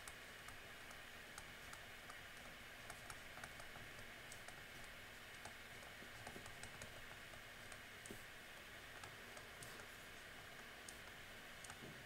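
Faint, irregular light taps and clicks of a stylus on a tablet screen during handwriting, over a steady low hiss.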